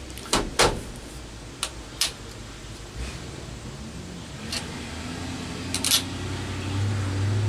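Several short sharp clicks and taps from handling a tape measure and trim pieces, spread out over a few seconds. A low hum underneath grows louder near the end.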